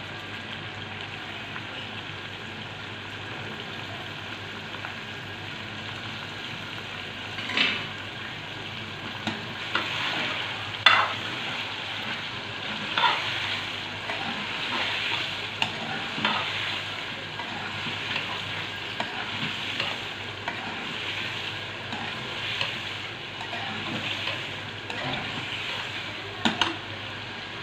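Chicken pieces and chopped tomatoes frying in oil in a metal pot, a steady sizzling hiss throughout. From about seven seconds in, a steel ladle stirs and scrapes around the pot, with a few sharp knocks of ladle on metal.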